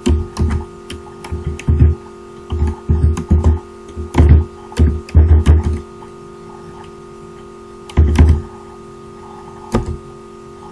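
Keystrokes on a computer keyboard, irregular taps in short clusters with pauses between, over a steady electrical hum.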